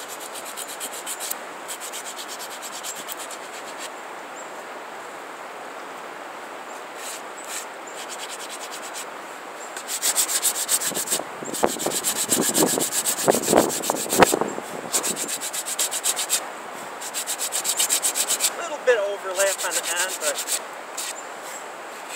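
Hand-sanding the rawhide-backed edge of a wooden bow with sandpaper on a rigid wooden block, in bursts of rapid back-and-forth strokes. The strokes are faint at first and loudest from about halfway through.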